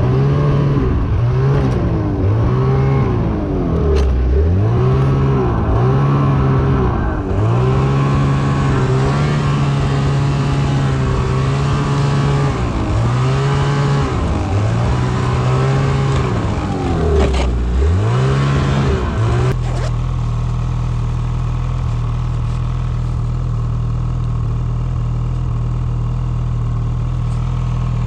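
Ski-Doo snowmobile engine revving up and down again and again as the throttle is worked through the snow. About twenty seconds in it settles to a steady low-speed run.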